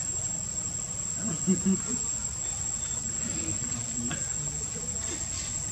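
An insect's steady high-pitched trill. About a second and a half in there are two short, low, voice-like calls.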